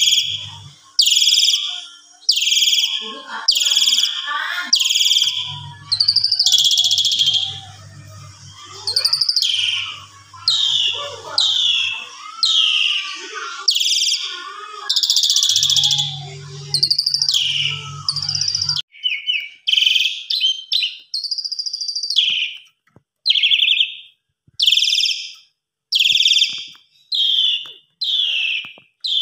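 Asian pied starling (jalak suren) calling loudly and steadily, a string of shrill whistled calls about one a second, each falling in pitch. A low hum lies underneath until about two thirds of the way in, after which the calls come shorter and quicker.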